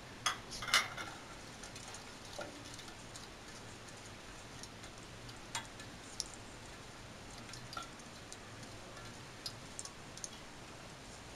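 Whole spices (black cumin seeds, cloves, cinnamon) crackling faintly in warm oil while a spoon stirs them in the pan: scattered light ticks and pops, a small cluster about a second in and single ticks after. This is the tempering stage, the spices being crackled in the oil.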